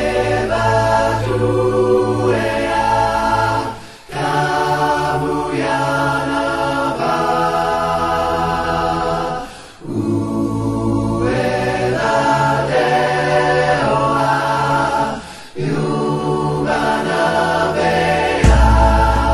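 Background music: a choir singing long held chords a cappella, in phrases of a few seconds separated by short breaks. A deep bass note comes in near the end.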